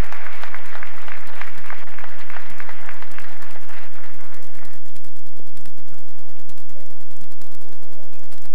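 Audience applauding, many hands clapping, dying away about five seconds in.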